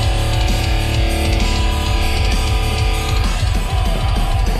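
Loud heavy-metal music, with distorted electric guitar chords over heavy bass; the chord changes about three seconds in.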